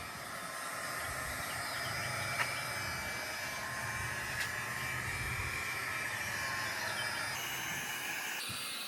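Electric heat gun running steadily, its fan whirring under a hiss of blowing air, as it heats the door's rubber weatherstrip to soften it. Two faint clicks are heard about two and four seconds in.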